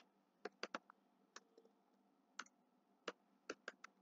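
Faint, irregular clicking, about nine sharp clicks spread unevenly over four seconds, from the pen or mouse input as handwriting is entered on a digital whiteboard.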